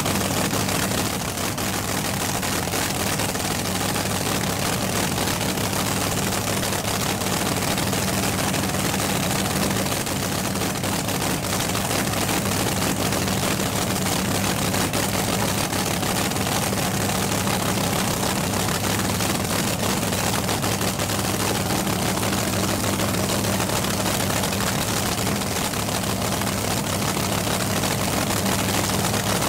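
Supercharged nitro-burning V8 of a fuel altered drag car idling steadily, the loud even cackle of a nitro engine at rest.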